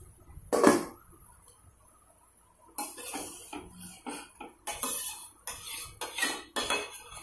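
Steel cookware clattering: one sharp metal clank about half a second in, then after a short pause a run of irregular clinks and scrapes of metal on metal, typical of a lid being handled and utensils against a steel kadai.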